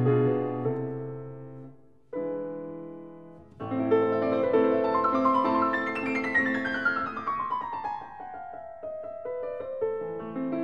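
Background solo piano music: notes and chords that ring and fade, a brief near-pause about two seconds in, and a long descending run of notes in the middle.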